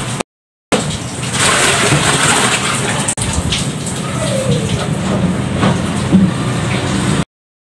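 Water running from a tap into a container: a steady splashing rush. It cuts out abruptly to silence twice, briefly just after the start and again near the end.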